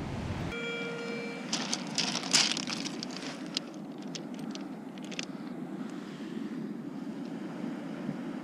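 A short steady metal detector tone, then a run of sharp clacks as a hand rummages through the rounded pebbles of a shingle beach, over a steady background rush.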